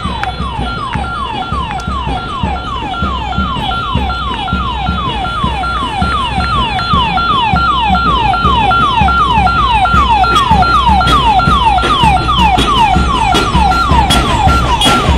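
An electronic vehicle siren repeating a quick falling whoop about three times a second, over the low rumble of passing motorcycle and vehicle engines.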